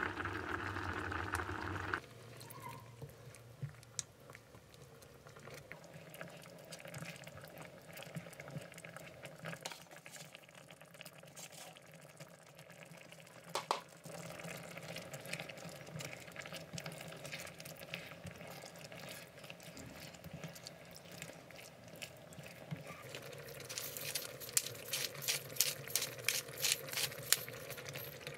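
Creamy coconut-milk sauce with chicken and mushrooms boiling in a small pot: louder bubbling for about the first two seconds, then a quieter simmer with scattered light clicks. Near the end a pepper mill grinds with rapid clicking, about four or five clicks a second.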